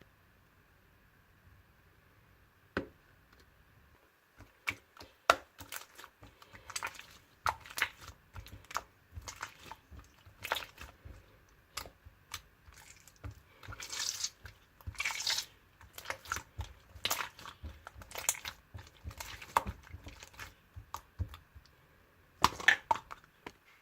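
Slime being mixed and kneaded by hand: irregular crackles, clicks and squishes, coming thick and fast from about four seconds in, with a cluster of louder crackles near the end.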